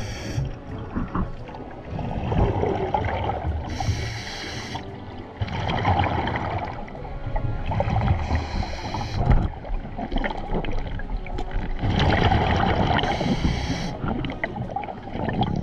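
Scuba diver breathing through a regulator underwater: a short hissing inhalation about every four to five seconds, each followed by a longer, lower rush of exhaled bubbles.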